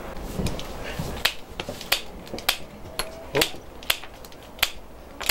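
Hand pruning shears snipping through wicker rods, about eight sharp clicks spaced half a second to a second apart, trimming the protruding ends of a woven wicker basket base.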